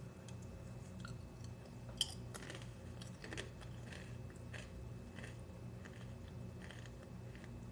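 Someone chewing crunchy Cheez-It Grooves cheese cracker chips with the mouth close to the microphone: irregular small crunches, the sharpest one about two seconds in.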